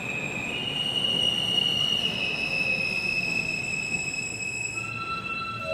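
R160 subway train braking into the station, running past at low speed with a steady high-pitched squeal whose tones step up and down in pitch a few times over the rumble of the wheels.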